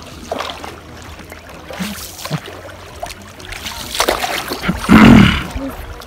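Water splashing and trickling in short irregular bursts, with one loud, close splash about five seconds in.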